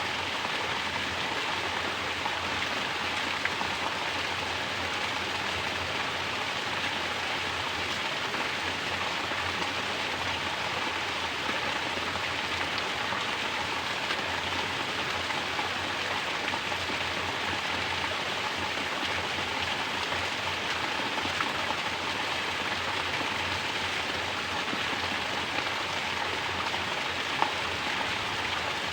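Mountain water pouring down as a natural shower and splashing, a steady even rush of falling water with no pauses.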